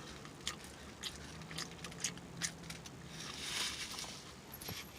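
Soft chewing and lip-smacking from a person eating: scattered small wet mouth clicks.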